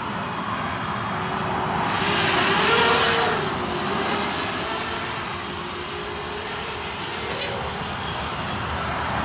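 Mini FPV racing quadcopter flying low through trees, its motors and propellers giving a steady buzz whose pitch wavers up and down with the throttle. It grows louder and hissier for a moment about two to three seconds in.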